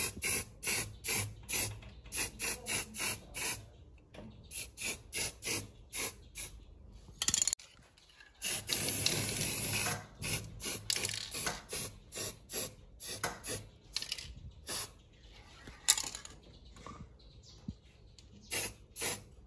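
Aerosol spray-paint can hissing in many short quick bursts, about three a second, with one longer spray of about a second and a half roughly nine seconds in.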